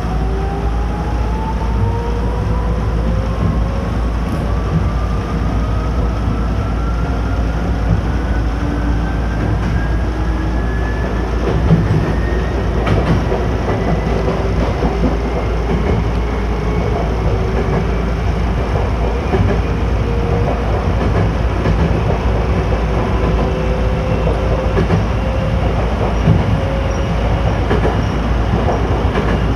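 Electric train running, heard from inside the carriage: a steady rumble with the motors' whine rising slowly in pitch as the train gathers speed, and a few knocks from the wheels over the rails.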